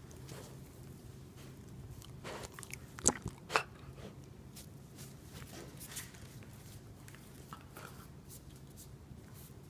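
Two Norfolk Terriers play-wrestling at close range: scuffling and mouthing, with scattered clicks on a tile floor. Two sharp clacks stand out about three seconds in, half a second apart.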